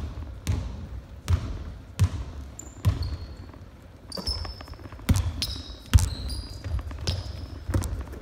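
Basketball dribbled on a wooden gym floor, bouncing about once every second, each bounce ringing in the hall. From about four seconds in, short high squeaks of sneakers on the court join the bouncing.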